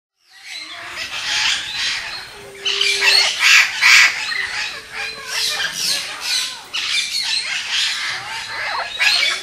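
Parrots squawking: a continuous run of loud, repeated calls.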